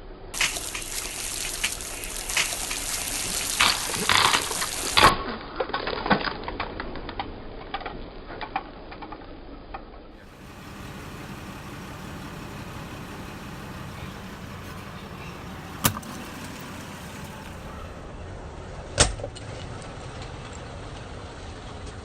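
A car tyre rolling over crunchy objects and crushing them, a dense run of crackling and snapping with several loud cracks, for about the first half. Then the car's engine running steadily, broken by two sharp single snaps a few seconds apart.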